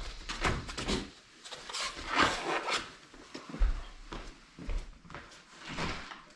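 Irregular short knocks, scuffs and rustles of a man and a puppy moving about on a tile floor, a dozen or so in a few seconds.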